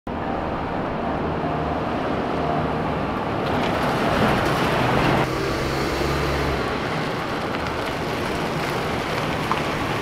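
Ford E-350 Chinook camper van driving slowly across pavement toward and past the listener: engine running and tyre noise, a little louder about five seconds in.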